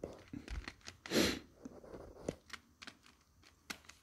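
Scattered small clicks and taps of an insulated screwdriver working the terminal screws of a plastic circuit breaker while its terminals are being tightened, with a brief hiss about a second in.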